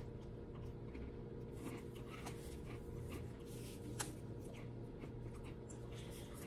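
Faint chewing of a crisp pastry cookie with a cocoa-cream filling: soft, irregular crunches and mouth clicks, one a little louder about four seconds in, over a steady low hum.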